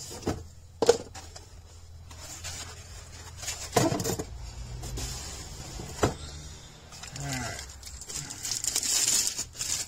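Parts of a rock tumbler kit being handled: a few sharp knocks as pieces are lifted out of a molded pulp packing tray, then plastic bags crinkling near the end.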